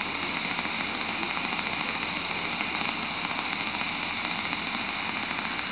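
Shortwave receiver in SSB mode on 14177 kHz in the 20-metre amateur band, giving steady static hiss with no station coming through. The signal meter drops to empty during the gap between transmissions.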